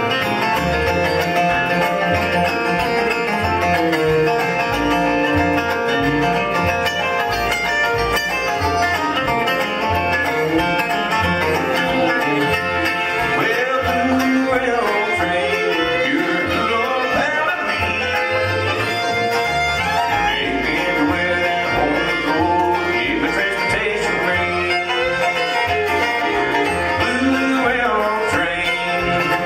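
Live bluegrass band playing an instrumental break with no singing: banjo, fiddle, acoustic and resonator guitars and mandolin over a steady upright-bass beat.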